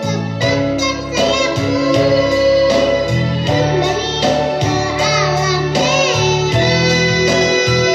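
A child singing a children's song over instrumental backing music with a steady beat.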